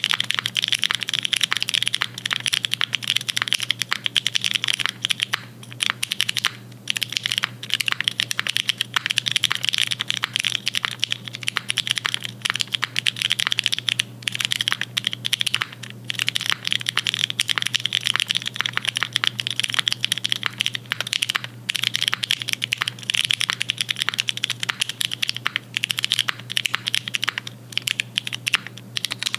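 Continuous typing on a custom-built mechanical keyboard: a dense, rapid run of keystroke clacks, broken by a few brief pauses.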